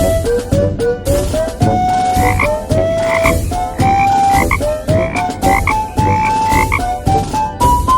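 Background music: a bouncy melody of short notes, each sliding up into its pitch, about three a second over a steady beat, climbing higher near the end.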